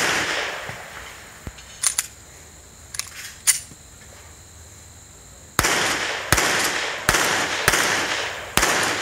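Springfield XD(M) 5.25 9mm pistol firing: a few fainter sharp cracks early, then a string of five loud shots from about halfway through, spaced a little under a second apart, each trailing off in a short echo.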